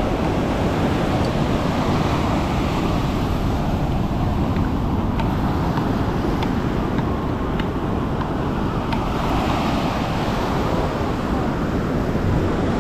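Surf breaking and washing up the beach, a steady rushing noise with wind buffeting the microphone. A few faint sharp taps come through around the middle.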